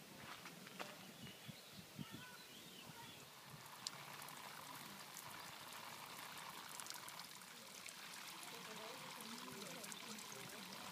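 Small garden fountain trickling and splashing into a lily pond, faint, setting in about four seconds in, with faint voices in the background.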